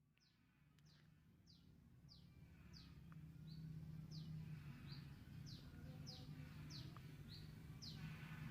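A bird calling repeatedly: short falling chirps about twice a second, mixed with a few brief flat notes, over a faint steady low hum. The sound fades in from silence over the first few seconds.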